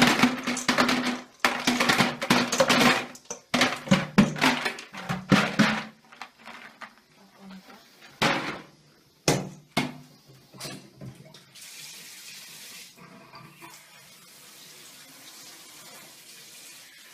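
Ice cubes poured from a metal bowl clattering and rattling into a plastic bucket, loud and dense for the first six seconds, followed by two separate knocks around eight and nine seconds in, then quieter handling.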